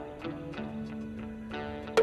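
Background score music with steady held notes.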